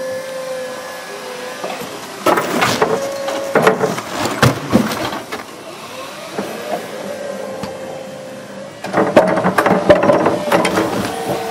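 Forklift with a Loron carton clamp attachment at work: a steady whine from the truck, broken by two spells of loud clattering and knocking, about two seconds in and again near the end, as the clamp pads release and take hold of bales of flat corrugated boxes.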